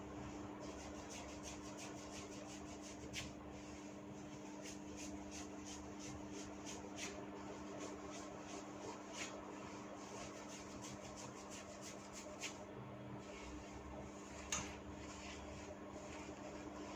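Hair tugged in small tufts during a head massage, giving many faint crackling snaps and a handful of sharper ones, the loudest near the end, over a steady low hum.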